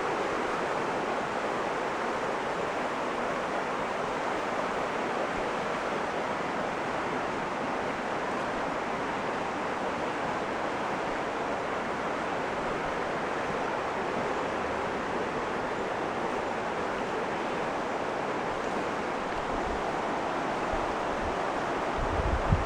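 Steady rushing of river water, an even hiss with no break, with a few low thumps near the end.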